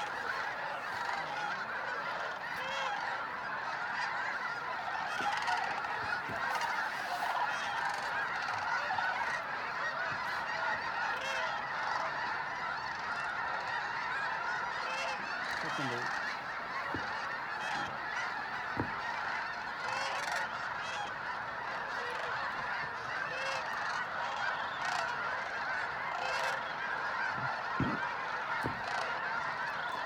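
A huge flock of snow geese calling all at once: a dense, unbroken chorus of overlapping honks.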